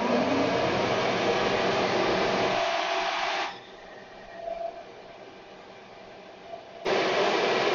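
Vertical milling machine running with a boring head in the spindle, a steady whirring noise. About three and a half seconds in it drops sharply to a quieter level, and about seven seconds in it comes back loud all at once.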